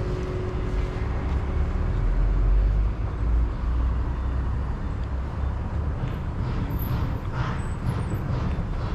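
Street traffic: a steady low rumble of cars going by, heaviest about two to three seconds in.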